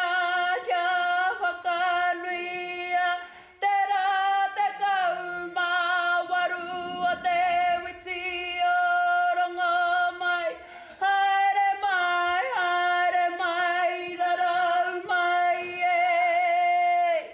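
A woman's karanga, the Māori ceremonial call, sung unaccompanied as long, high held notes. It comes in three long phrases, and the pitch wavers as the notes are drawn out.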